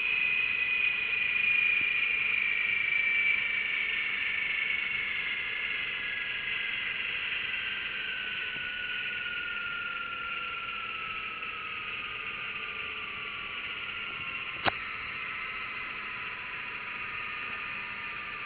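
Recorded engine sound played back by an Arduino-driven DFPlayer Mini MP3 module as an RC model's engine-sound simulator, its pitch slowly falling as the simulated revs drop. A single sharp click comes about three-quarters of the way through.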